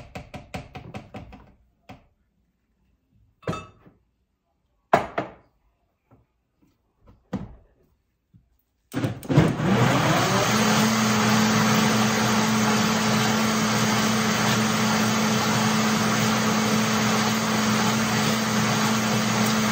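Countertop blender mixing crepe batter of milk, eggs, flour and melted butter. It is pulsed in a quick series of short bursts, and there are a few knocks. About nine seconds in it is switched on: it spins up and then runs steadily at high speed with a constant hum.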